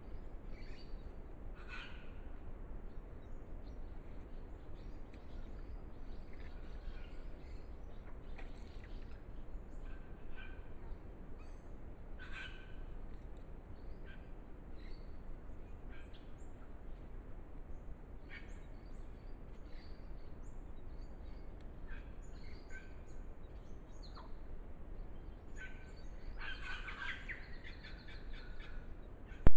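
Short, scattered bird calls and chirps, with a denser run of calls near the end. Underneath is the steady low hum and hiss of a trail camera's microphone.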